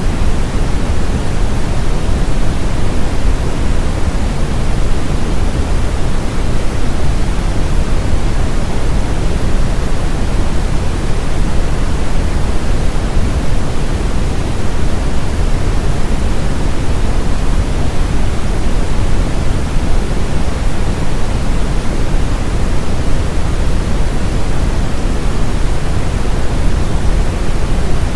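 Steady brown noise: an even, deep hiss, heaviest in the low end, unchanging throughout.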